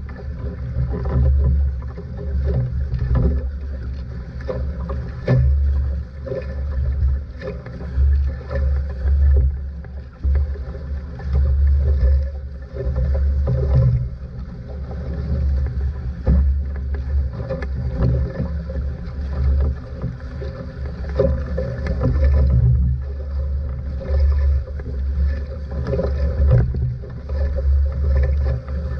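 Water rushing and splashing against the hull of a fast-sailing outrigger canoe, with a heavy, uneven low rumble.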